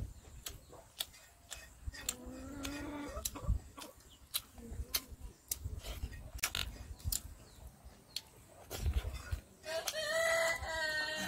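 Chickens calling: a short call about two seconds in and a longer rooster crow near the end. Under them, repeated sharp clicks of chewing and lip-smacking as rice and curry are eaten by hand from a metal plate.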